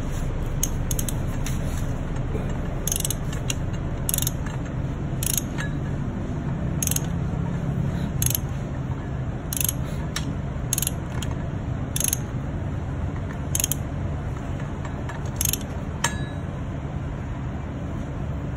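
Hand wrench working a nut in a motorcycle engine's open clutch-side case, with a short sharp metallic click about every second as the wrench is swung and reset, over a steady low hum.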